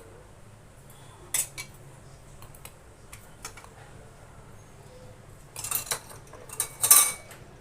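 Spoon and mixer jar clinking as salt is added to peanut chutney ingredients: a couple of light clicks, then a cluster of clatters near the end.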